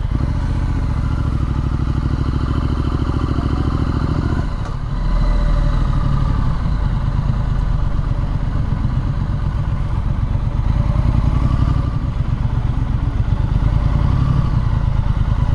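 Triumph Street Scrambler's 900 cc parallel-twin engine running steadily at low revs, then pulling away about four and a half seconds in and running louder on the move.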